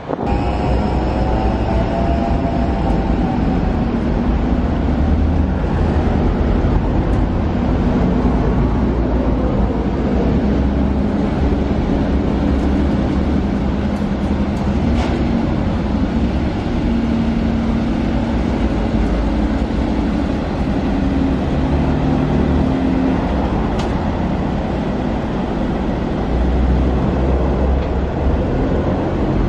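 Mercedes-Benz G550's twin-turbo V8 running at low speed as the SUV crawls over a steep ramp and arch obstacle: a steady low rumble with a few faint clicks.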